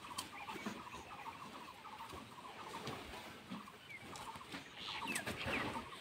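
Faint bird calls: a fast chattering run of clucking notes for the first few seconds, then a few short chirps about five seconds in.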